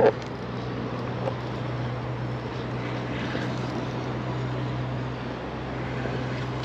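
A steady low drone, as of a distant engine, over an even rushing outdoor noise.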